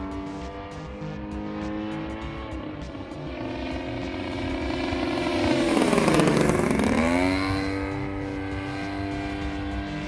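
DLE 35RA two-stroke petrol engine of a 30cc Hangar 9 Tiger RC plane running in flight, growing louder to a close low pass about six seconds in, then easing off again.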